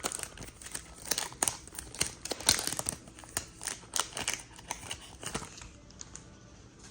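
Trading card pack wrapper being torn open and crinkled in the hands, a dense run of crackles that eases off after about five seconds.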